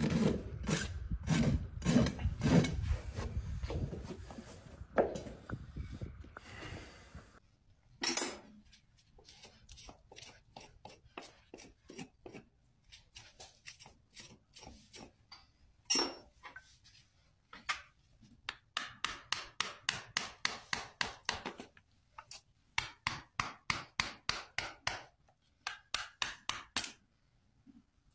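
A farrier's rasp filing a horse's hoof. There are heavy strokes for the first few seconds, then runs of quicker, lighter strokes at about three to four a second.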